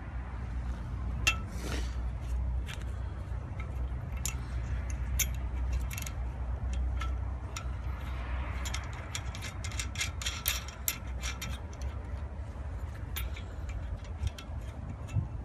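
Small metallic clicks and clinks of an open-end spanner, bolt and nut against a steel fence-post clip as the nut is fitted and tightened, with a quick run of clicks about halfway through. A low steady rumble lies under them.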